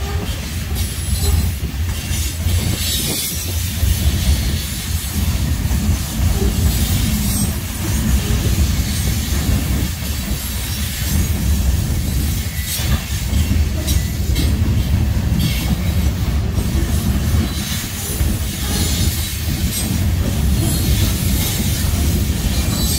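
Freight cars of a Norfolk Southern train rolling past: covered hoppers and boxcars with a steady, loud rumble of steel wheels on the rails and a flickering higher noise above it.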